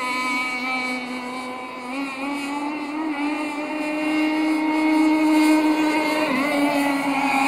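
Aeromarine Conquest Cat RC gas boat's CC Racing 260 two-stroke engine on a tuned steel pipe, running flat out: a steady, high-pitched engine whine. It grows louder from about halfway through as the boat passes, with a brief dip in pitch near the end.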